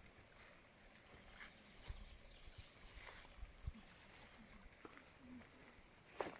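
Faint outdoor quiet with small birds chirping now and then and a few soft thumps and knocks, likely footsteps and handling.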